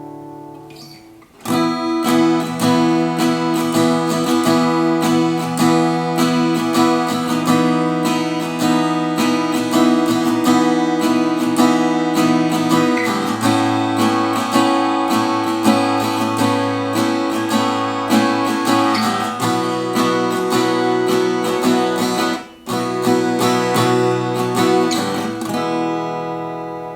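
Yamaha FS-100C steel-string acoustic guitar being strummed. A chord rings and fades, then steady strumming through a chord progression starts about a second and a half in. The strumming breaks off briefly after about twenty-two seconds, resumes, and the last chord is left ringing out.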